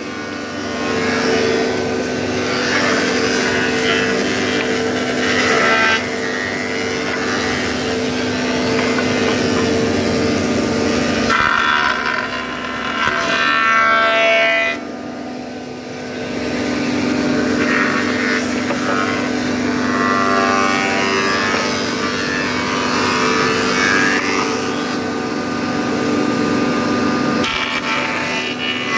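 Heavy woodworking machinery running in a timber mill, a steady machine hum with a noisy whirr above it. The hum drops away for a few seconds about halfway through and again near the end, then comes back.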